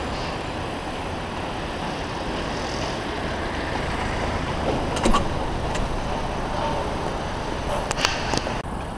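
Steady city traffic noise, with a sharp knock about five seconds in and a few clicks near the end.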